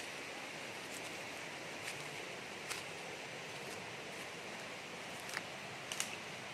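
Steady rush of a rocky forest stream flowing, with a few faint clicks and knocks scattered through it.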